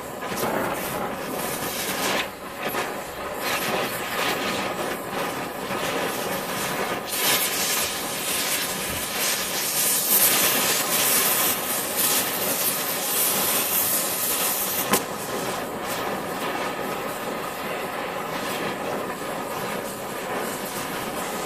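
MagneGas2 torch flame hissing steadily as it plays on a piece of tungsten; louder and harsher from about seven to fifteen seconds in.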